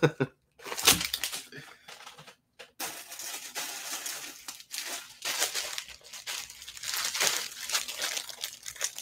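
Clear plastic poly bag crinkling as a pair of folded leggings inside it is handled. A few light taps come in the first second, and the crinkling sets in about three seconds in and carries on steadily.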